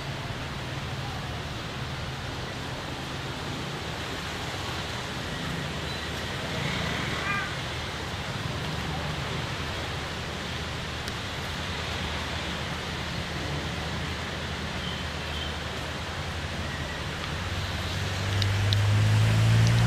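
Railway diesel engine running with a steady low rumble under a steady hiss; about 18 seconds in the engine grows louder.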